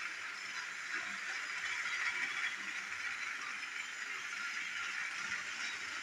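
Battery-powered toy train engine running around a plastic track pulling a string of trucks: the steady whir of its small motor and gears with the rattle of the wheels on the track.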